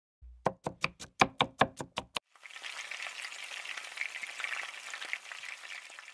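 A knife chopping on a cutting board, about ten quick strokes at roughly five a second, then food sizzling in a hot frying pan. The sizzle starts about two seconds in and fades near the end.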